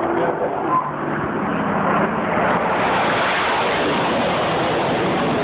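F-16 fighter jet's single-engine turbofan, loud, as the jet passes low overhead; the noise builds over the first couple of seconds and then holds steady.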